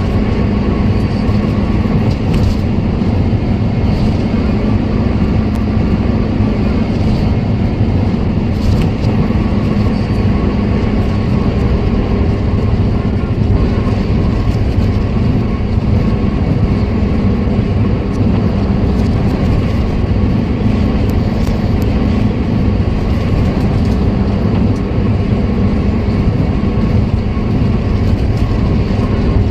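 Road vehicle driving at a steady speed: a continuous low rumble of engine and road noise, with no clear change in speed.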